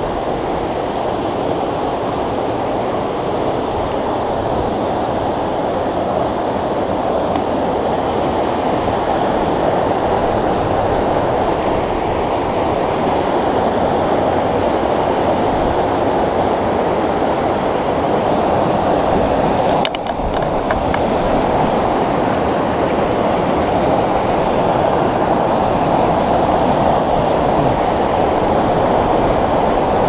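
Rocky mountain stream rushing over boulders in white-water rapids: a steady, loud rush of water that grows slightly louder toward the end.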